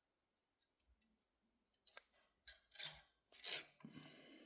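Safety wire and safety wire pliers being handled: a few light metallic clicks, then scratchy scraping and rubbing of the wire from about halfway in, loudest near the end, as the wire is pushed into place and pulled tight.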